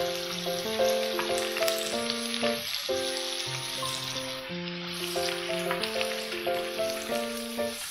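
Battered corn dogs deep-frying in hot oil: a steady sizzle and crackle of bubbling oil, with light melodic music playing over it.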